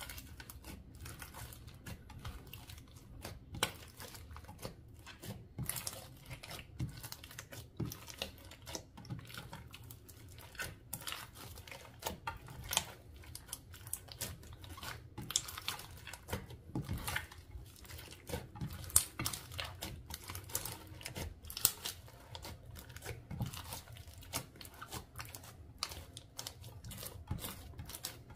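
Slime being squished and stretched by hand, making a dense, irregular run of crackles and small pops.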